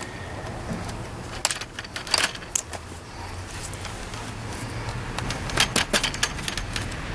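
Light metallic clicks and clinks of a flaring tool being taken off a freshly flared copper refrigerant tube, and of the tube being handled. There is one group of clinks about two seconds in and another near the end.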